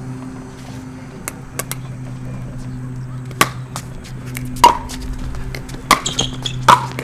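Pickleball rally: sharp pops of paddles striking the hard plastic ball, several spread a second or so apart, some with a short ring, over a faint steady low hum.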